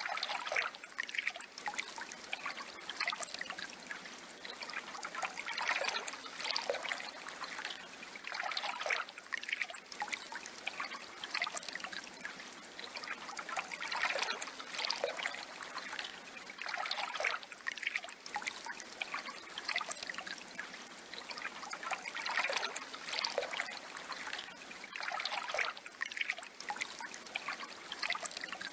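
Water trickling and splashing in an uneven, continuous flow, swelling and easing every few seconds.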